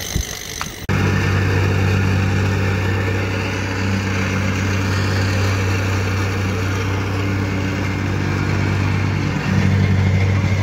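Petrol plate compactor's small engine running steadily at working speed as the plate vibrates over sand. It starts abruptly about a second in and briefly dips near the end.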